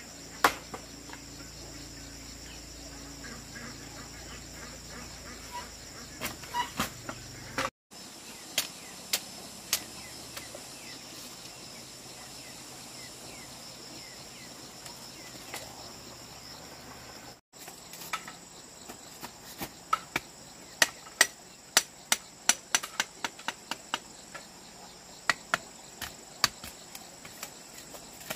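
Steady high-pitched chirring of insects, with sharp knocks on top: a few in the first third, then a quick run of many strikes near the end. The sound drops out briefly twice.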